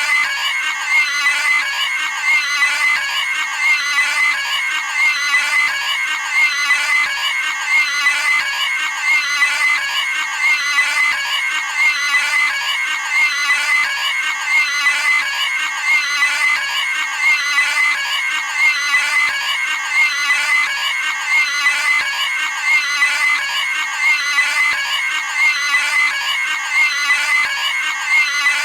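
Cartoon pig's high-pitched squealing scream, a sound effect repeated over and over in an even loop.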